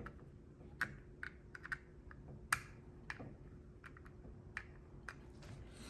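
Faint, irregular small clicks and taps from handling wires and the mini smart WiFi relay's plastic terminal connectors as the ferrule-tipped switch wires are fitted and snugged down.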